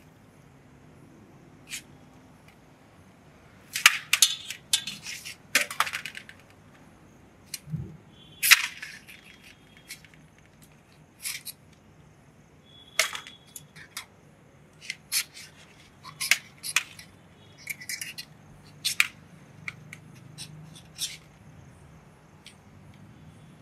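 Metal skewer and tongs clinking and scraping against a steel bowl as chunks of grilled chicken are slid off the skewer and moved about. A dense run of clinks a few seconds in, then scattered single clinks.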